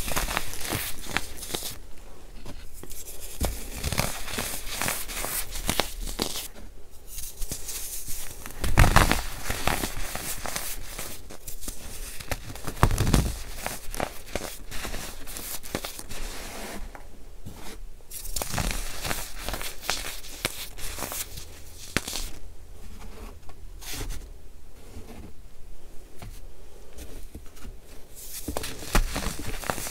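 Hands crushing and crumbling pressed baking soda in a pile of loose powder: a crisp, continuous crunching and crackling, with two heavier crunches about nine and thirteen seconds in.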